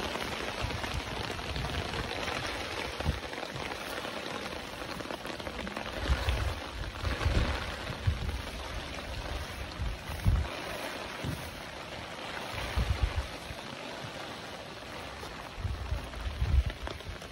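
Steady rain falling, heard as a soft, even hiss, with occasional low bumps on the microphone.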